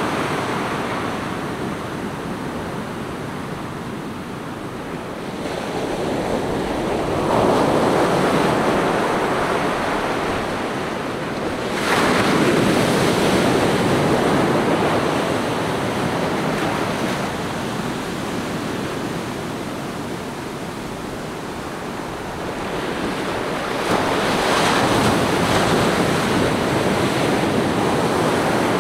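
Ocean surf breaking and washing up a sandy beach, a steady rush that swells and eases in slow surges, with one wave breaking sharply about twelve seconds in.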